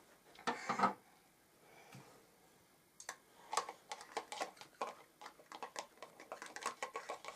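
Small irregular taps and clicks, several a second, from a child's hands and a sponge working at a KidKraft toy kitchen's oven door and knobs, starting about three seconds in after a short rustle just under a second in.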